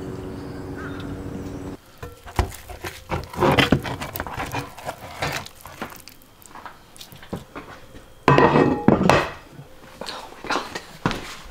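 A steady low hum for about the first two seconds, then cuts to kitchen handling sounds: clinks and knocks of a cast iron roasting pan and utensils as smoked pork is worked, with two louder stretches of clatter, one about a third of the way in and one about three quarters of the way in.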